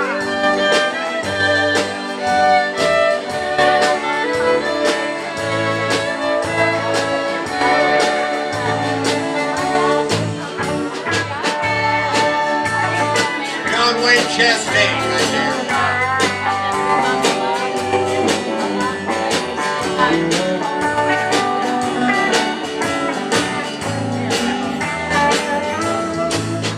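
Live country dance band playing: fiddle and guitars over a bass line, with drums keeping a steady beat.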